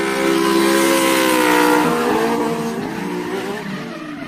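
Drift cars' engines held at high revs while the tyres spin and squeal in a slide. The engine note holds steady for about two seconds, then rises and falls as the revs change.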